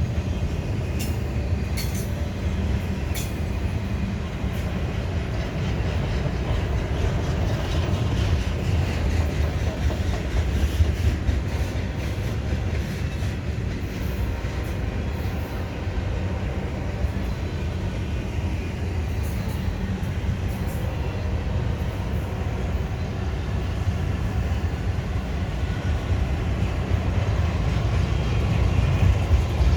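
Freight cars of a BNSF intermodal train rolling past: a steady, heavy rumble of steel wheels on the rails, with a few sharp clicks from the wheels and couplers.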